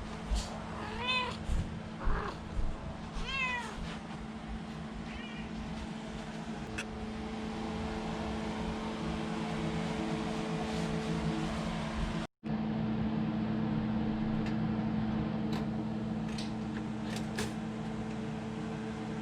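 A cat meowing three or four times in the first few seconds, over the steady hum of a kitchen exhaust fan. The hum gets louder after a brief cut about two-thirds of the way through.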